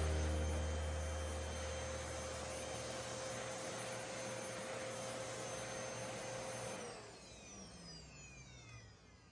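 Vacuum cleaner running steadily with a motor whine as it cleans debris off a wooden tabletop. About seven seconds in it is switched off, and the whine falls in pitch as the motor winds down.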